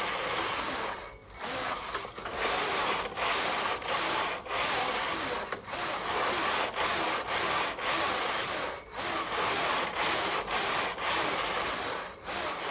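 Brother KH-950i electronic knitting machine knitting lace: the carriage is pushed back and forth across the metal needle bed, making a rushing, clattering rub on each pass. Each pass lasts about a second, with a brief pause as the carriage turns at each end.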